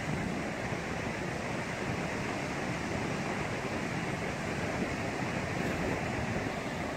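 Steady rush of surf breaking on a sandy beach, mixed with wind buffeting the microphone.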